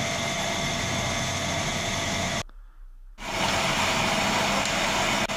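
Horizontal milling machine running, its arbor-mounted disc cutter cutting a keyway slot into a metal shaft: a steady mechanical hum and hiss with faint steady tones. The sound cuts out for under a second about halfway through, then resumes.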